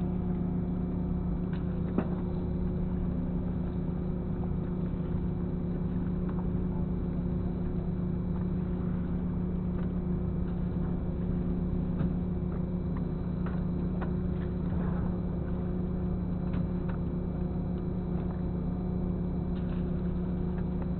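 Fishing boat's engine running steadily, a constant low hum that does not change, with scattered light clicks and knocks over it.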